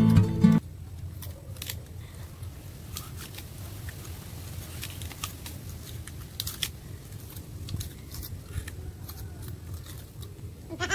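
Sugarcane being bitten and chewed, giving scattered short, crisp cracks and crunches over a low steady background. A strummed acoustic guitar cuts off in the first second.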